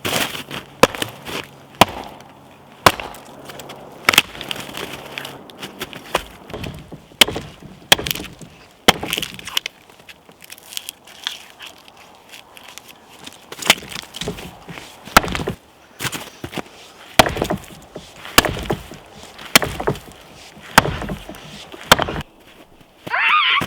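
Wood being struck and broken: a series of sharp wooden cracks and knocks at irregular intervals, with a quieter stretch around the middle.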